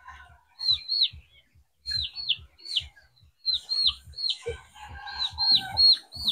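Chickens peeping: repeated short, high, falling notes, mostly in pairs, with some lower clucking near the end and soft low thuds underneath.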